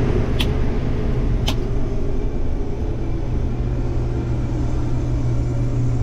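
Combine harvester running, heard from inside its cab: a steady drone with a strong low hum, and two faint clicks about half a second and a second and a half in.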